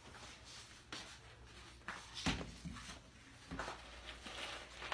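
A few soft knocks and shuffling sounds from handling a plastic bowl of dry pinto beans, the loudest knock a little past the middle.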